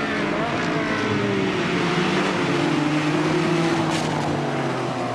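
Sports car engines running and driving by, the engine note sliding slowly down in pitch.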